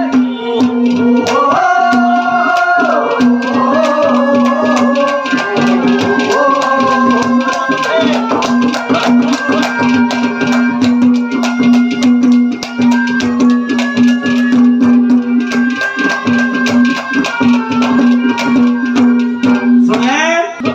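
Instrumental interlude of a Haryanvi ragni folk band: a melody instrument winds over a steady held drone note while a hand drum and jingling percussion keep a fast, dense rhythm. Near the end a quick rising sweep in pitch leads into the next line.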